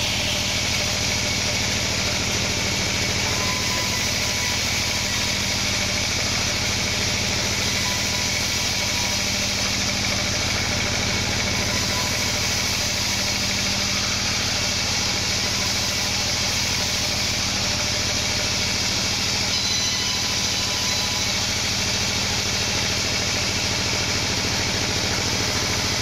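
Homemade band sawmill running steadily, its band saw blade cutting through wadang timber. A constant low motor drone sits under the hiss of the blade in the wood, with no breaks.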